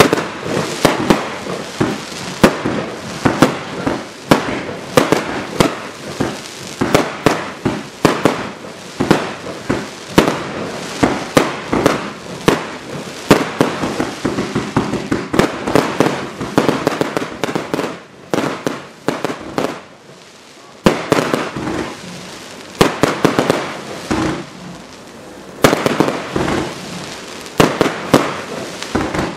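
Black Widow 75-shot firework cake firing in rapid succession: sharp shots and aerial bursts, several a second, with a short lull about two-thirds through before the shots pick up again.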